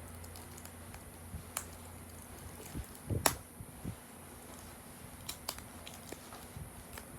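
Small clicks and taps of hands handling a toy truck's box and packaging, with one sharper click about three seconds in, over a low steady hum.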